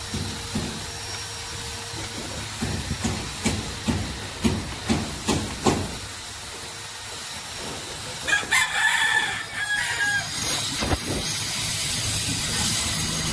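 A rooster crows once, about eight seconds in, a pitched call lasting a second and a half. Before it comes a run of sharp knocks, about two a second.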